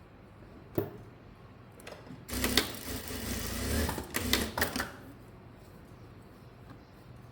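Sewing machine stitching in a short run of about two and a half seconds, starting a little past two seconds in, preceded by a single sharp click about a second in.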